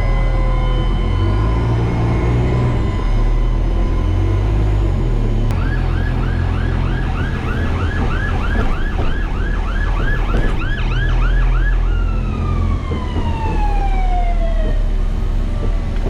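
Fire truck siren sounding over a heavy low engine rumble. It starts with a slow wail falling in pitch, switches about five seconds in to a fast yelp of roughly two and a half sweeps a second for about six seconds, then winds down in long falling glides.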